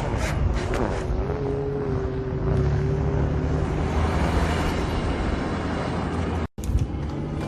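Off-road vehicle running and driving with a steady low rumble. About a second in, a thin steady whine rises over it and fades after a few seconds. Near the end the sound cuts out for an instant.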